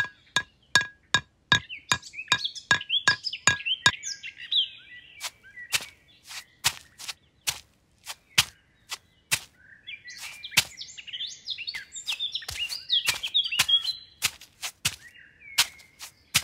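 Sharp clicks of miniature clay bricks being set down one by one, about three a second at first and then more irregular, with birds chirping in two stretches.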